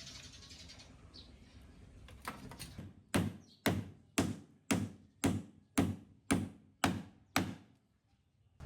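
A few light taps, then nine hard knocks struck at an even beat of about two a second, each ringing briefly, stopping near the end.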